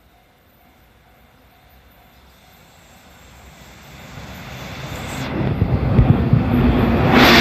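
A train approaching the level crossing: its rumble grows steadily louder over several seconds and turns suddenly much louder and harsher near the end as the train reaches the crossing. For the first couple of seconds a faint, evenly repeating level-crossing warning bell can be heard.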